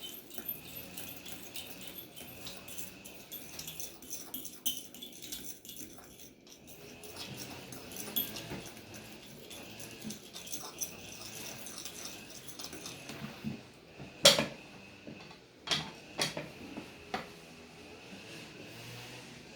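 Egg white being beaten by hand in a bowl: a utensil clicking and rattling against the bowl in quick irregular strokes, with a few louder knocks on the bowl near the end.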